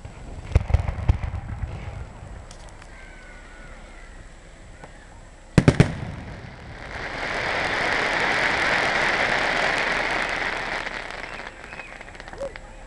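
Fireworks going off: a quick cluster of sharp bangs about half a second in, three loud bangs close together near the middle as a shell bursts, then a dense hiss that swells and fades over about five seconds.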